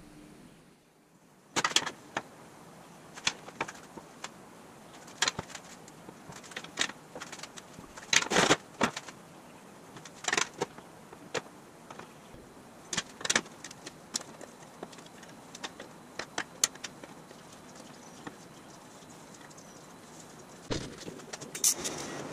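Irregular metallic clinks and taps as a thin metal strip is handled and fitted against a metal grille shell. Near the end a steady hiss starts: a TIG welding arc.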